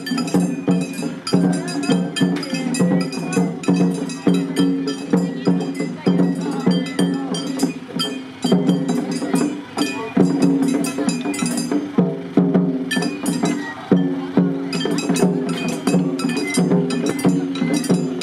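Japanese festival hayashi played by children: a steady run of rapid drum strikes with the clank of a small metal gong.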